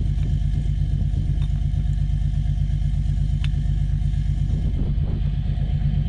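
John Deere 8310 tractor's six-cylinder diesel engine idling steadily, with a few faint metallic clicks from a wrench on a hydraulic hose fitting.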